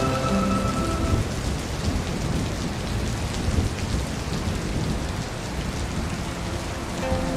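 Steady rain falling into a puddle, with thunder rumbling low underneath.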